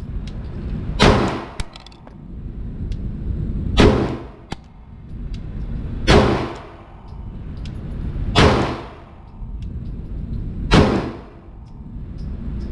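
A handgun fired five times at a slow, steady pace, about one shot every two and a half seconds, each report echoing briefly in an indoor range.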